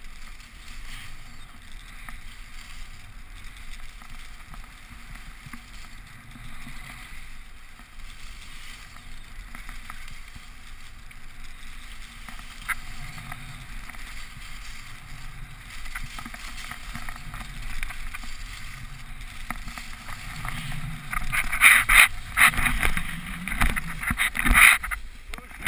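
Skis sliding and carving over snow with a steady hiss. Near the end comes a run of loud knocks and crunches as the skier falls and tumbles in the snow.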